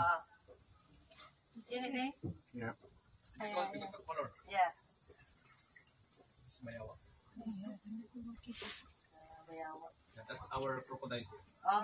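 A steady, high-pitched chorus of insects trilling without a break, with faint talking underneath.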